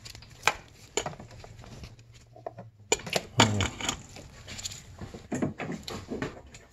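Scattered metallic clinks and knocks from hand tools and small metal parts being handled: single sharp taps about half a second and a second in, then clusters of clatter about three seconds in and again near the end.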